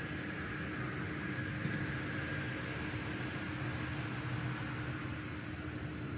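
Steady background rumble of passing vehicles, swelling slightly about two seconds in, with a thin steady high tone over it.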